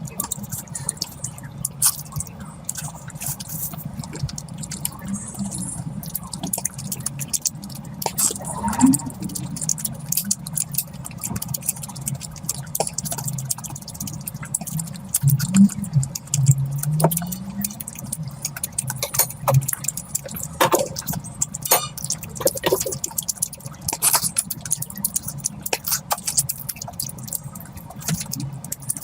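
Close-miked eating of curry: wet chewing and smacking, heard as many irregular small clicks and squelches over a steady low hum.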